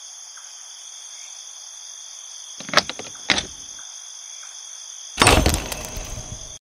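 Two sharp clicks about half a second apart as a small hard case's latches are opened, over a steady high hiss. About five seconds in comes a louder burst of metal clanking and rattling as a metal hand tool works against a door's steel push handles.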